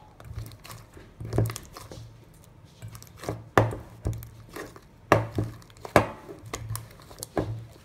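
Hands kneading activated fluffy slime, made from glue, shaving cream and boric solution, in a stainless steel bowl: irregular squishing with sharp sticky pops and clicks, several of them loud, at uneven intervals.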